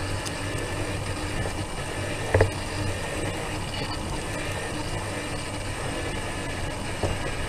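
Steady running noise of a small, slow-moving vehicle rolling along a street, with a low hum throughout. About two and a half seconds in there is one brief, loud squeak.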